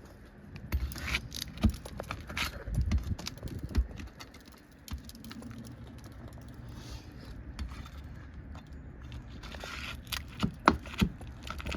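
Roofing nails being worked out from under an asphalt shingle: clicks, scrapes and crackle as the metal tool and nail grind against the shingle, with the nail tearing through it. The sound comes in two spells, one in the first few seconds and another near the end.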